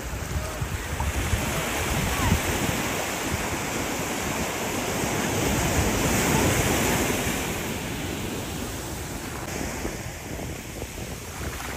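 Sea surf washing and breaking on a sandy beach, swelling to its loudest about halfway through and then easing, with wind buffeting the microphone.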